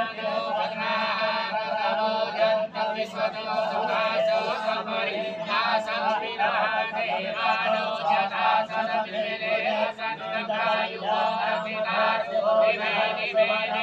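A priest chanting Hindu puja mantras in a continuous, rhythmic recitation.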